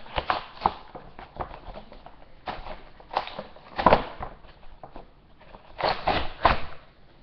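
Plastic and cardboard packaging of a boxed action-figure two-pack being handled and torn open: irregular crinkling and rustling, with louder rips and crackles about four seconds in and again around six seconds.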